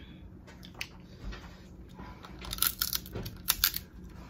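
Crab shells being handled and cracked: a run of small sharp clicks and crackles, busiest from about two and a half seconds in to near the end.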